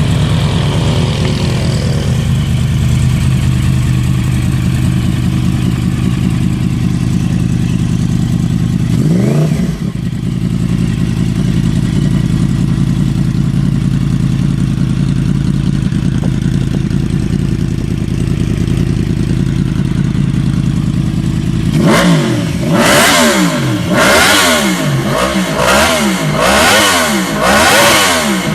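Yamaha R1's inline-four engine through a four-canister Hurricane aftermarket sport exhaust, idling steadily with one short throttle blip about a third of the way in. Near the end it is revved in a quick string of sharp blips, the pitch rising and falling several times.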